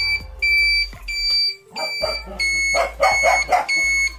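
Scooter turn-signal beeper sounding a short high beep about twice a second while the left turn signal flashes. A dog barks several times in the background from about halfway to three-quarters of the way through.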